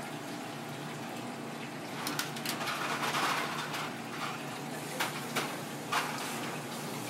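Kitchen background noise: a steady hum with a rush of water-like noise about two seconds in that fades a couple of seconds later, then three short sharp clicks near the end.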